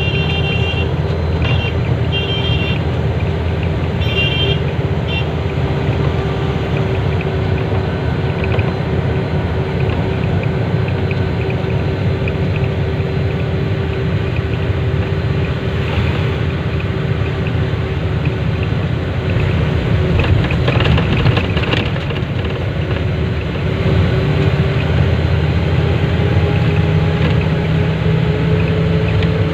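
Steady low motor rumble with a held humming tone that rises slightly near the end, like a vehicle running. A few short, high beeping toots come in the first five seconds.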